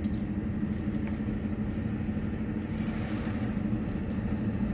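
Steady low road and engine rumble inside the cabin of a 2008 Jeep Grand Cherokee Laredo driving slowly at about 15 mph, with a few faint light clinks now and then.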